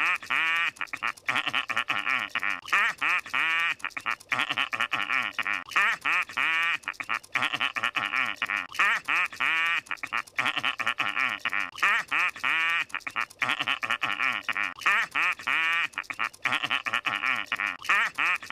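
Squidward Tentacles' cartoon laugh from SpongeBob SquarePants: a pitched, rapidly pulsing snicker, the same clip repeated over and over in a loop with hardly a gap.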